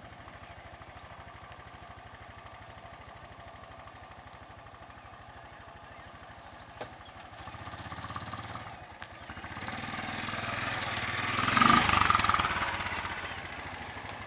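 A small engine idles steadily with an even low pulse. About halfway through, the auto rickshaw's engine revs up and grows louder as the three-wheeler drives forward, loudest near the end.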